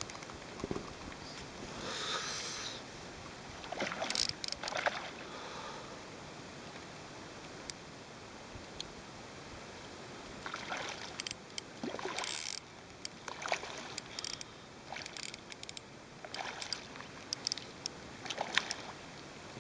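A hooked carp splashing and swirling at the water's surface in several short, irregular bursts while it is played on a fly rod, with scattered small clicks between.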